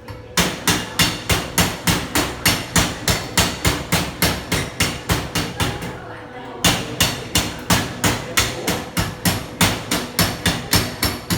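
Hammer striking metal in quick, regular blows, about four a second. The blows ease briefly about six seconds in, then resume harder.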